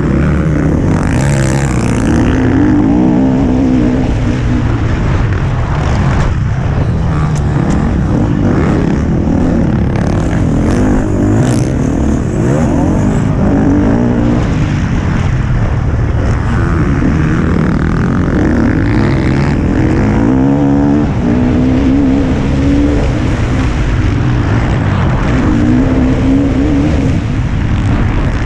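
Motocross bike engine revving hard and dropping back again and again as the rider accelerates and rolls off around the dirt track, with heavy wind rumble on the helmet-mounted microphone. A few sharp clicks and knocks are heard around the middle.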